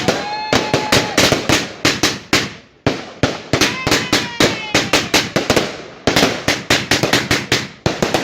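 Rapid volley of firework bangs: sharp cracks about four or five a second, with short lulls about three and six seconds in.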